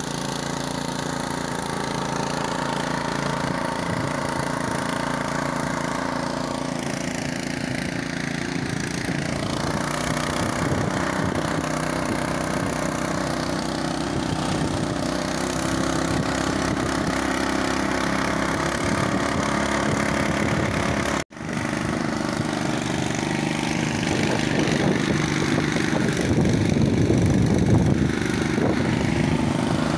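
Small engine of a walk-behind tractor running steadily as it pulls its cart along a road, with the rattle of the ride mixed in. The sound cuts out for an instant about two-thirds of the way through.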